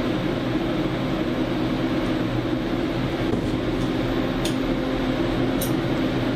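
CNC machining centre running with a steady mechanical hum, with two faint clicks about four and a half and five and a half seconds in.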